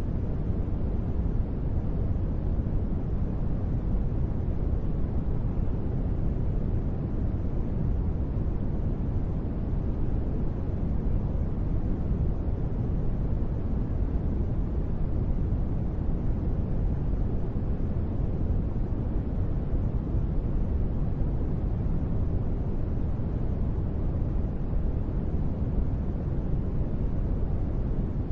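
Steady sleep noise, a deep even rumble with little high hiss and no separate drops or patter, presented as gentle rain white noise. It holds the same level without change.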